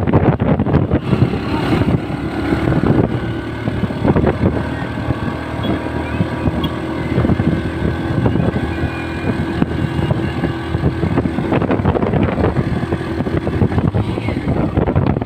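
Riding noise from a moving motorcycle: wind buffeting the microphone over the engine's steady drone.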